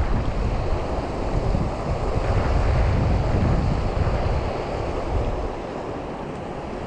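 Wind buffeting the microphone in gusts, a heavy low rumble that eases a little near the end.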